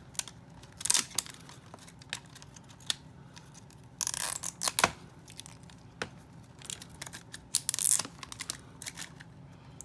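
Plastic toy packaging being torn open and crinkled by hand, in several short bursts, the longest about four seconds in, with light clicks between.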